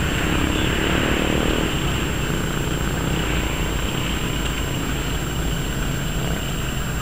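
Wind buffeting the camera's microphone: a steady low rumble with hiss over it.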